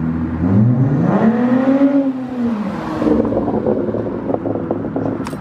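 Straight-piped 2010 Acura TL's V6 exhaust as the car accelerates past. The engine note climbs in pitch, peaks about two seconds in, then drops and fades as the car pulls away.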